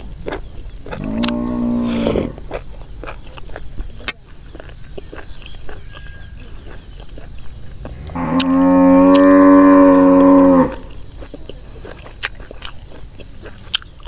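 A cow mooing twice: a short call about a second in, then a longer, louder one about eight seconds in. In between come small clicks and smacks of eating.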